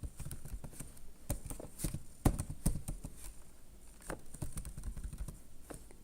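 Sparse, irregular light clicks and taps of a computer keyboard and mouse, the sharpest about two seconds in.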